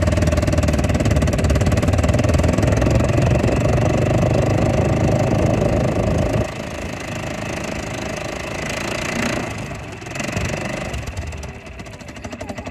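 ATV (quad bike) engine running under way, steady and loud, then easing off about six seconds in to a quieter, uneven running as the bike slows. Near the end it settles into a fast, regular idle pulse.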